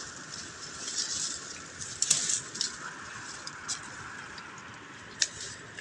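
Dry twigs and leaf litter rustling and snapping as a person moves through dry scrub, with a few sharp clicks, the loudest about two seconds in and another near the end, over a steady high hiss.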